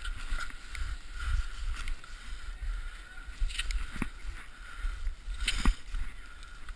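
Muffled rumbling and rubbing against a GoPro camera's housing as a fallen skier shifts about in the snow. A sharp click comes about four seconds in and another about five and a half seconds in.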